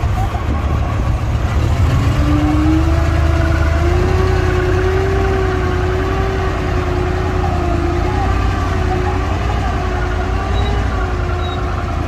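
Diesel engines of heavy earthmoving machines (bulldozers and dump trucks) running with a steady low rumble. From about two seconds in, a sustained, slightly wavering whine rides over it.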